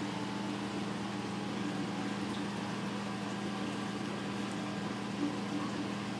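Steady low hum of a reef aquarium's circulation pump over an even hiss of moving water. The hum is noticeable enough that the owner wants to replace the pump with a quieter one.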